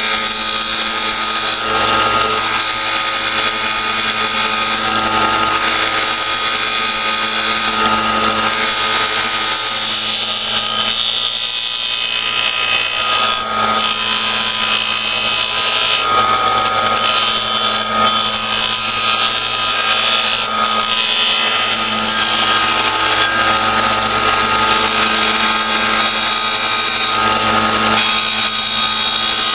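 Delta 1-inch belt / 5-inch disc sander running, a small hardboard disc held against the sanding disc to round it off. A steady motor hum under the rasp of abrasive on hardboard, which swells and eases as the piece is pressed and turned.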